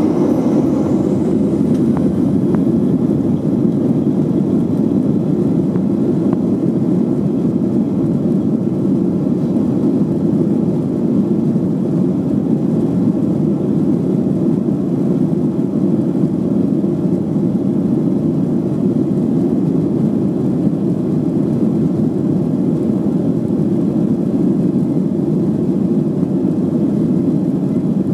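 Boeing 737-800's CFM56-7B jet engines at takeoff thrust, heard inside the cabin over the wing: a steady, loud, low rush through the takeoff roll. A faint high whine rises in pitch in the first two seconds as the engines spool up.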